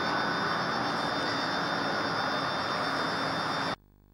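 Steady rushing noise with a faint high whine, cutting off abruptly near the end.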